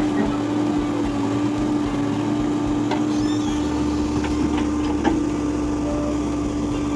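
A motor running steadily with an even hum, with a few light clicks about halfway through.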